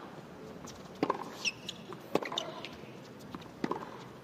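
Tennis ball hit back and forth in a baseline rally on a hard court: sharp racket strikes about a second to a second and a half apart, three of them loudest, with a brief high shoe squeak between them.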